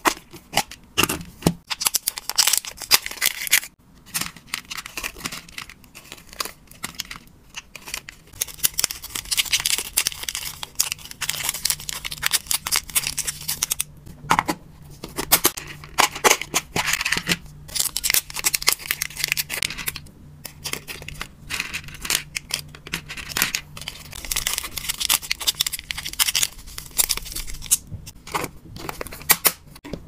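Dry hamster food and treats being packed by hand in plastic storage boxes: a dense, continuous run of clicks, rattles and crinkles from clip-lock lids, food pieces and plastic packets, with a few short pauses.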